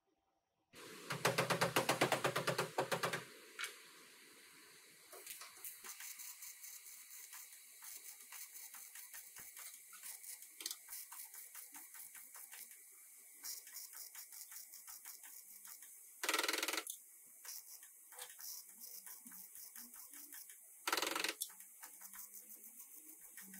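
Welding gun laying short welds on a replacement steel rear side panel, the arc crackling. There is a loud burst of about two and a half seconds near the start and two shorter bursts later, with faint rapid ticking and hiss in between.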